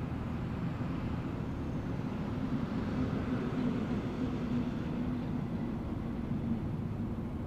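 Steady low rumble of distant motor traffic, with one engine drone swelling and fading over a few seconds in the middle.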